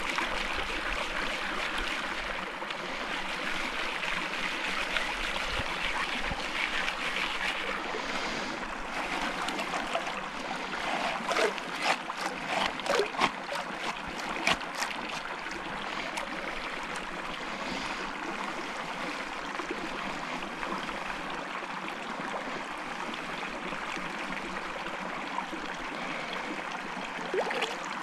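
Shallow creek water running steadily around a gold pan being washed and swirled in it, with a run of short sharp splashes about halfway through and another near the end.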